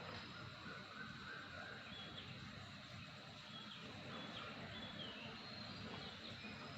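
Faint outdoor ambience: birds giving a series of short, high whistled notes, some sliding in pitch, over a steady high insect drone.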